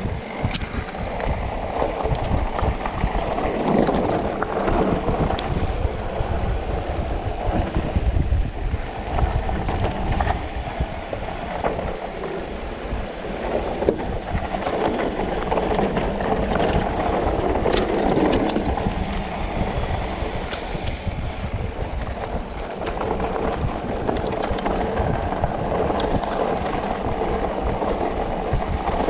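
Specialized Turbo Levo electric mountain bike ridden over a dirt trail: continuous rumble and rattle from tyres and frame, with wind buffeting the action-camera microphone and a few sharp knocks.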